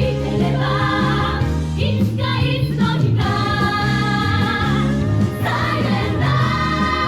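Musical-theatre ensemble number: a group of women singing together in harmony over full backing music, with long held notes.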